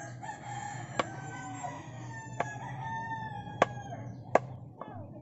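A rooster crowing one long drawn-out crow of about four seconds. Over it, a kitchen knife knocks four times on a wooden cutting board as sweet pickles are sliced; the knocks are the loudest sounds.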